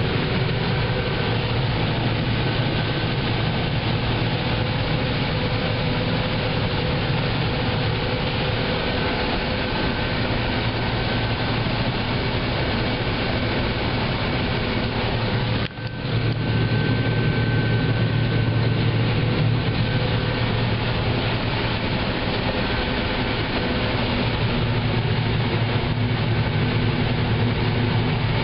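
John Deere combine running while harvesting corn: a steady heavy engine and machinery drone with a low hum and a few higher steady tones. There is a momentary drop in level about halfway through.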